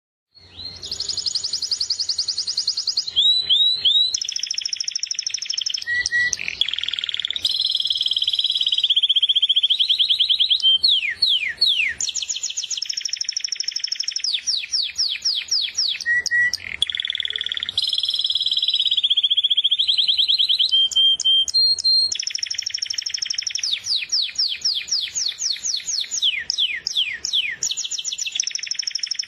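Domestic canary singing a continuous, loud song of fast trills and rolls of repeated notes, switching to a new phrase every second or two, with some quick sweeping notes in between.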